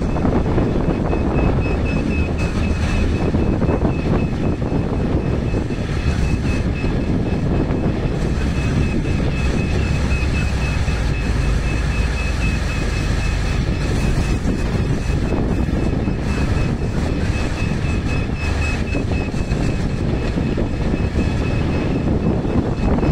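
Liugong wheel loader's diesel engine running steady and loud under load as it lifts and tips its bucket into a dump truck, with a thin steady high whine from about two seconds in.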